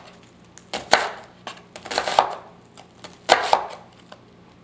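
Chef's knife chopping a red onion on a wooden cutting board: three pairs of crisp knife strikes, each pair about a second apart, the blade cutting through the onion layers and knocking on the board, stopping about a second before the end.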